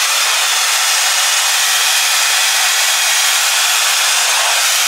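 Hand-held blow dryer running, a loud, steady rush of air as it dries hair.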